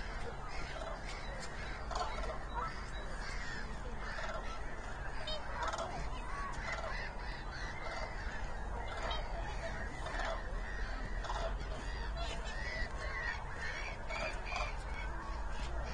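A large flock of common cranes calling: many short calls overlapping one after another without a break, over a steady low rumble.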